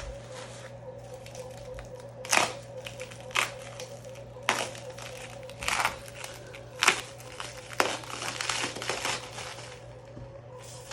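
Packaging crinkling and rustling as it is pulled off and crumpled from a new skateboard deck, in irregular bursts with sharper crackles about once a second.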